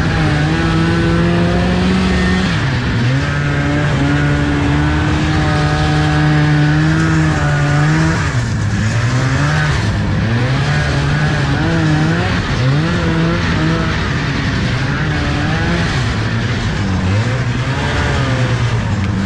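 1975 Arctic Cat Panther 440 snowmobile's two-stroke engine running under way through deep snow. Its pitch holds mostly steady with one brief dip, then rises and falls repeatedly as the throttle is worked from about eight seconds in.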